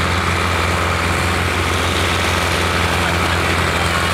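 Farm tractor's engine running with a steady low drone while it pulls a trolley piled high with sugarcane over ploughed ground.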